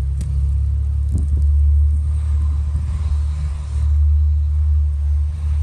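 Steady low rumble of a car driving, with a few faint clicks near the start.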